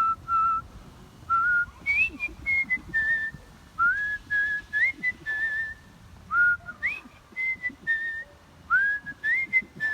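A person performing a melody by artistic lip whistling, solo. It is a single pure tone moving in short phrases, with quick upward scoops into many of the notes.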